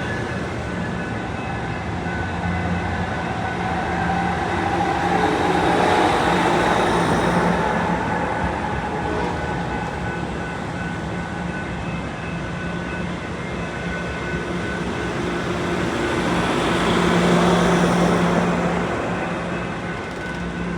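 A train running by, with a steady low drone that swells louder about a quarter of the way in and again near the end.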